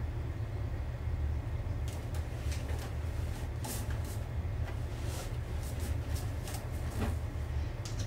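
A steady low hum, with soft scattered clicks and rustles of movement starting about two seconds in.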